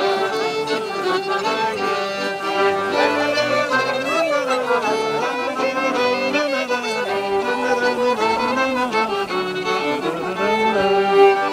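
Fiddle playing a traditional Swedish folk dance tune, a continuous bowed melody.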